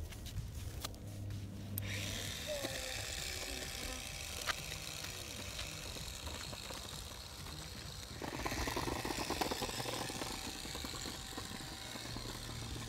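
A child's plastic bubble scooter rolling, its small wheels rattling over the ground over the low hum of its bubble-blower motor. About eight seconds in the rattle turns rougher and louder as the wheels run over brick paving.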